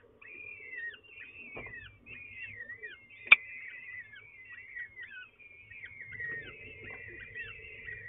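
Peregrine falcon chicks begging at feeding time: a rapid, continuous string of high cheeps, each falling in pitch. One sharp click about three seconds in.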